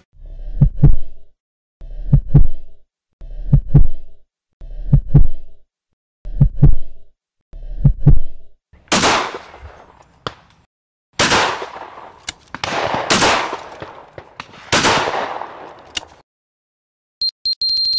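Heartbeat sound effect, a low double thump repeated six times about every one and a half seconds. It is followed by about five loud, sharp blasts that ring out and die away, heard as shotgun shots.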